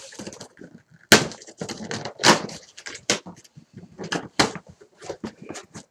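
Cardboard shipping box being pulled open and handled: irregular scraping, rustling and knocking of the cardboard flaps, with a sharp knock about a second in.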